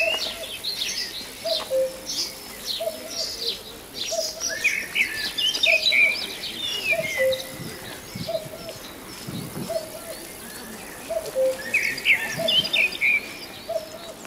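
Birdsong: small songbirds chirping and trilling in high, quick phrases. Beneath them a dove repeats a low cooing call at an even pace, about once every three quarters of a second.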